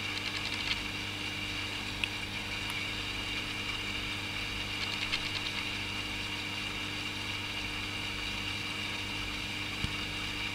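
Steady low hum of running aquarium equipment, with short bursts of rapid ticking near the start and about five seconds in.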